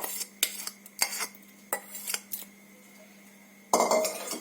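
A spoon clinking and scraping against a metal bowl as fried tempering is tipped into a mixer jar: several sharp clinks, a short pause, then a louder scraping rattle near the end.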